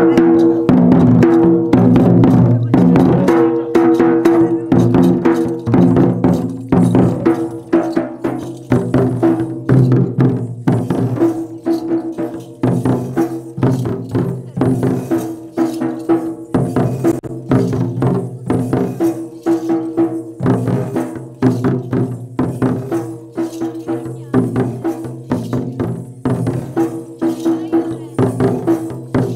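Bison Horn Maria dhol dance music: several long two-headed barrel drums beaten together in a fast, steady rhythm, with a held melody sounding over the drumming.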